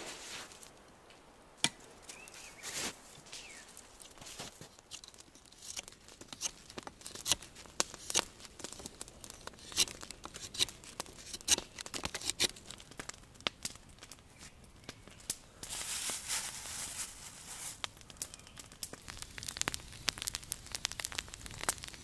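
Branches snapped and broken off by hand, then a knife whittling a wooden stick: a long run of short sharp cuts and cracks.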